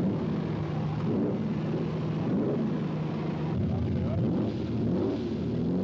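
A car engine idling steadily, with people talking over it.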